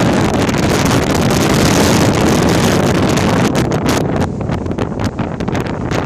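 Wind buffeting a phone's microphone: a loud, rushing noise that eases a little about four seconds in, then breaks into short crackling gusts.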